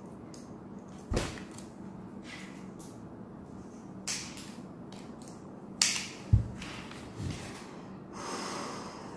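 Handling sounds of a 3M 6200 half-face respirator being put on: a handful of scattered clicks and knocks as the mask and its head straps are pulled into place, with a short hiss near the end.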